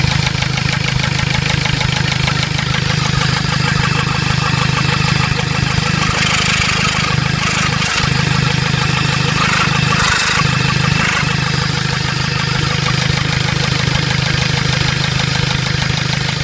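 Toyota Yaris D-4D common-rail diesel engine idling steadily with its diesel clatter, now running smoothly with the injector clamp replaced and no fuel leaking. A short hiss comes in twice midway.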